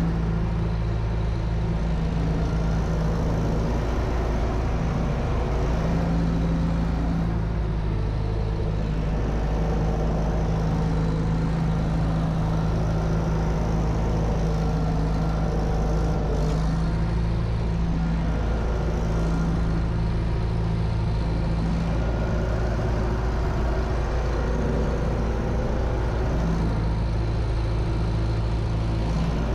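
UTB Universal U650 tractor's four-cylinder diesel engine running steadily under load while pulling a plough, heard from inside the cab.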